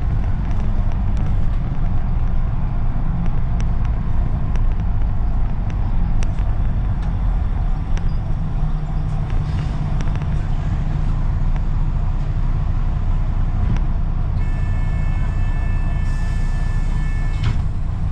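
A double-decker bus heard from inside on the move: the engine and road noise run steadily, with light rattling ticks from the bodywork. About three seconds before the end, a high steady squeal sounds and then cuts off.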